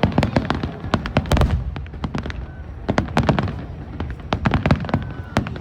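Aerial fireworks display going off in rapid volleys of sharp bangs, several in quick succession, some with deep booms underneath.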